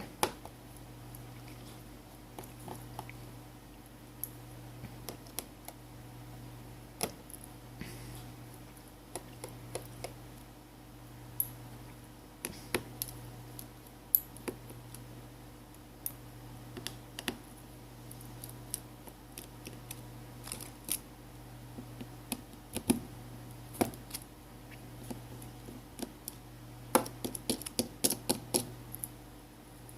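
Small screwdriver turning out the tiny screws of a Coolpad Note 3S smartphone's inner frame: scattered light clicks and taps, with a quicker run of clicks near the end, over a steady low hum.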